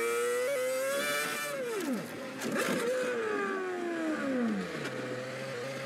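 Formula One car's Mercedes engine heard from onboard, its pitch falling as the car slows: a sharp drop about two seconds in, a brief rise, then a long falling glide that settles into a steady drone near the end.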